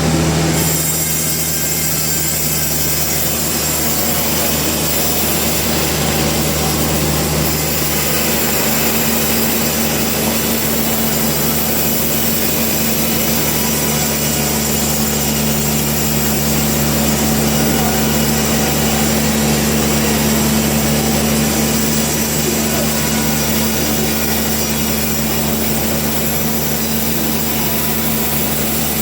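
Sawmill saw running steadily through wood, a continuous machine hum under the noise of the cut.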